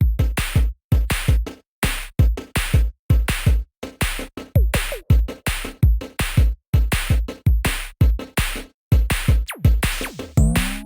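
Electronic background music with a drum-machine beat and heavy bass.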